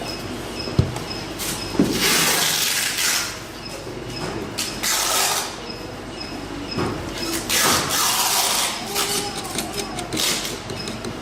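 Hands working on the parts of a beauty machine: two sharp knocks about a second apart, then three rustling, scraping stretches of about a second each.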